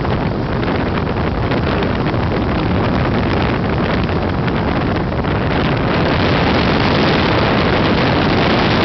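Steady, loud rushing roar from inside a hot boiler pass, heard through an inspection opening while a shower-clean nozzle sprays water onto the tube walls. The hiss grows louder about five seconds in.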